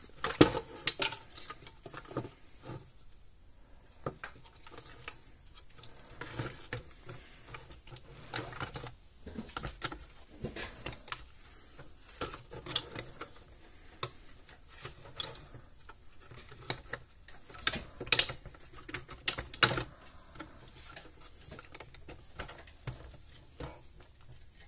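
Irregular clicks, taps and light knocks of hands fitting a circuit board and parts into a plastic fence-energizer case, with a few sharper knocks just after the start and twice in the later part.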